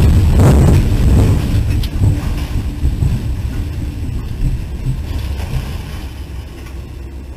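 Tornado wind and low rumbling heard inside a locomotive cab. Loud at the start, with a sharp hit about half a second in, then fading steadily as the storm passes.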